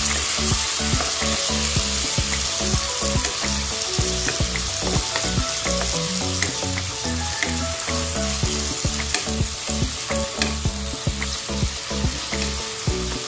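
Kangkong (water spinach) stems sizzling in a wok with oyster sauce and water, stirred and tossed with a wooden spatula, with scattered light knocks of the spatula against the pan.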